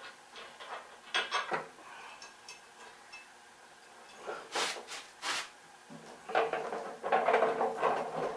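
Metal hardware being handled: a few clicks, three sharp metallic clinks in the middle, then a longer rattling clatter of metal near the end.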